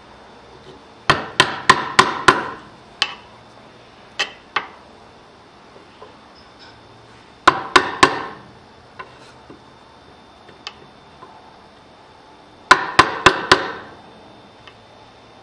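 Wood chisel being struck with quick blows, cutting a notch into a wooden timber a little at a time: three runs of four or five fast strikes, with a few single taps in between.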